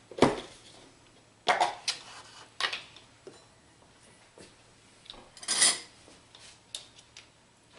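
Kitchen handling sounds: a few sharp clicks and knocks as a plastic yogurt tub is opened and a metal measuring cup and spoon are picked up, with a short scrape a little over halfway through.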